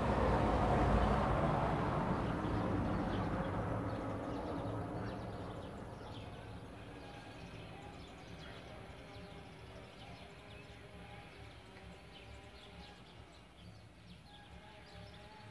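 A passing vehicle's rumble, loudest at the start, fades away over about eight seconds, leaving faint bird chirps.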